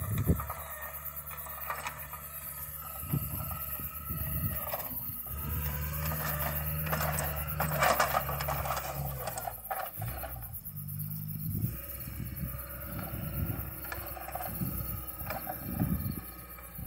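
Caterpillar 906 compact wheel loader's diesel engine running as the loader drives across the field, its low hum coming and going in stretches and loudest about halfway through.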